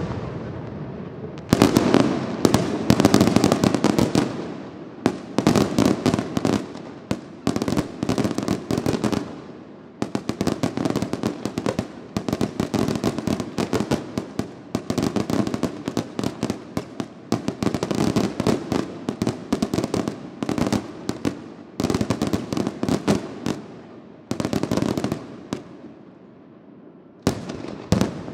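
Fireworks display: rapid volleys of sharp bangs and crackling in dense waves every few seconds. It thins out briefly near the end before a final loud burst.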